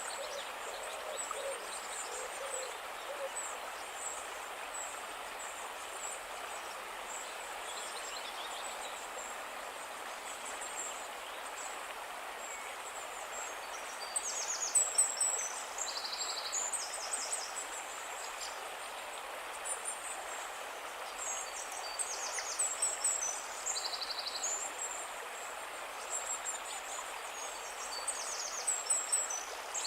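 Steady rushing of a calm river, with birds chirping in short high-pitched bursts several times. The chirps are loudest about halfway through and near the end. A few low hoots sound in the first seconds.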